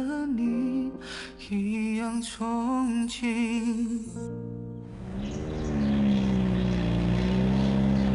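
A ballad with a singer's wavering melody, which stops about four seconds in. A second later a sports car's engine is heard driving past, loud and steady, its pitch dipping slightly and coming back up.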